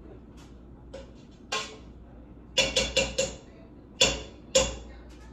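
A utensil knocking against cookware, likely to scrape butter off into the pan: a quick run of three or four ringing taps about two and a half seconds in, then two louder single knocks about a second and a half later.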